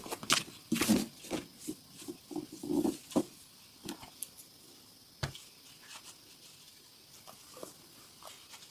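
Massage hand strokes on a person's body: a run of sharp slaps and dull pats in the first three seconds, one more slap a little after five seconds, then a few faint taps near the end.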